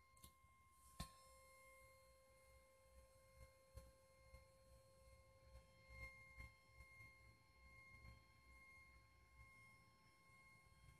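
Faint, steady high-pitched tone from a Rodin coil driven by a 530 Hz square wave, with a neodymium ball spinning inside it. A faint tick comes about a second in.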